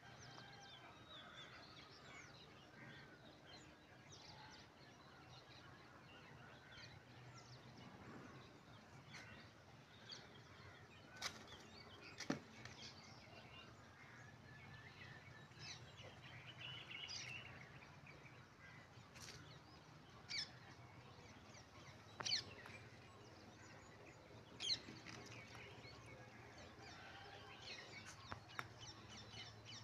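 Faint outdoor ambience with small birds chirping now and then, and a few short sharp sounds standing out above it.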